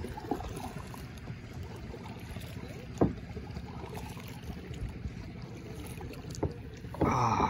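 Kayak paddling: double-bladed paddle strokes in the water making a steady low wash with light splashes, and a sharp knock about three seconds in. A brief voice sounds near the end.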